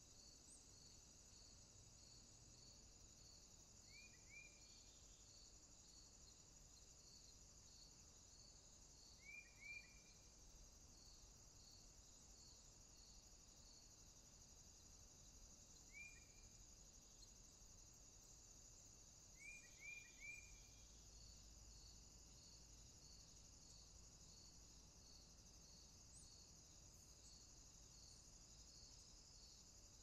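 Faint steady chorus of crickets and other insects, with a regular high chirp repeating about one and a half times a second that drops out for several seconds in the middle. A bird's short falling calls come in twos and threes four times and are the loudest sounds.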